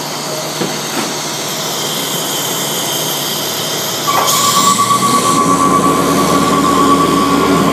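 Heavy truck machinery running with a steady mechanical noise; about four seconds in it gets louder and a steady high whine with a lower hum starts and holds.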